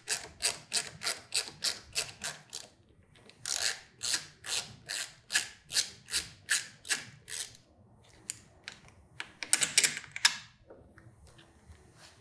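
Ratcheting screwdriver clicking steadily, about three to four clicks a second, as it backs out the Torx screws holding a motorcycle handlebar switch pod. The clicking stops for a moment about three seconds in, runs again for about four seconds, then gives way to a few scattered clicks and a short rattle of small parts around ten seconds in.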